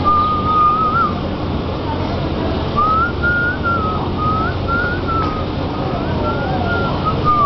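A person whistling a wavering tune in short high phrases, one about a second long at the start, then a string of them from about three seconds in, over a steady low background rumble.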